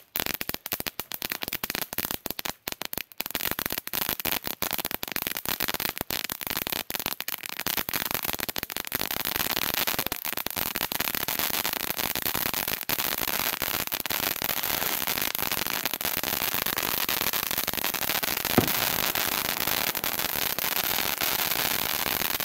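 "Laser Lights" cone fountain firework spraying sparks with a dense crackle. The crackle thickens over the first several seconds into a continuous hissing crackle, with one sharper pop about three-quarters of the way through.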